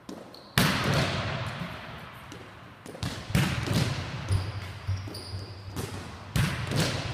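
Volleyballs being hit and bouncing on a gym floor: a loud smack about half a second in, then several more hits and bounces, each ringing on in the big hall.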